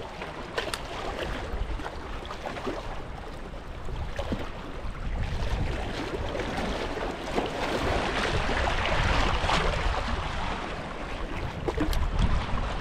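Wind on the microphone over water washing, swelling for a few seconds in the middle, with a few light clicks.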